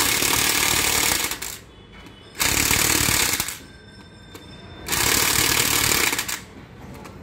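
Impact wrench hammering in three bursts of a second or so each, with short pauses between, as it tightens the 17 mm cylinder head bolts on a Bajaj Pulsar 220 engine.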